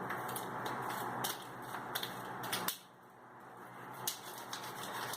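Hands kneading and pulling sticky glue-based homemade slime, with irregular wet clicks and smacks as it sticks to and peels from the fingers. The slime is still at the early, sticky stage of mixing. It goes quieter for a moment about halfway through.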